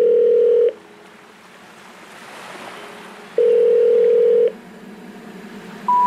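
Telephone ringing tone heard over the line: a steady tone about a second long, sounding twice about three seconds apart, with faint wind hiss between. Near the end a higher beep starts, the first note of a rising three-note intercept tone.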